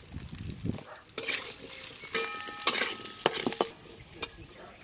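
Potato and pointed gourd pieces sizzling as they fry in hot mustard oil in a wok, with a metal spatula scraping against the pan as they are stirred. The sizzling starts about a second in and dies down near the end.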